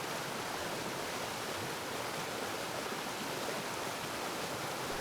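Steady rush of surf breaking, an even noise with no distinct waves or pauses standing out.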